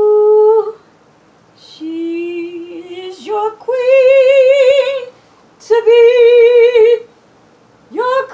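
A woman singing wordless notes a cappella: about five long held notes, the loudest with a wide vibrato, broken by short pauses, with a swoop upward into the last note near the end.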